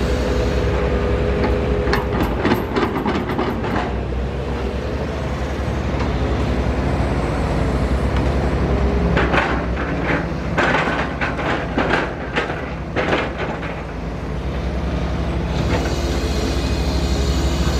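Diesel engine of a Shantui-built Matador ME210 C-1 crawler excavator running steadily under working load as it digs. Bursts of clanking and scraping come about two seconds in and again from about nine to thirteen seconds as the bucket works in the dirt.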